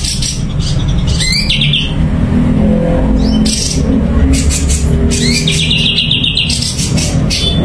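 Cucak cungkok bird singing short, rapid trilled phrases and sharp chirps, several times, over a steady low rumble.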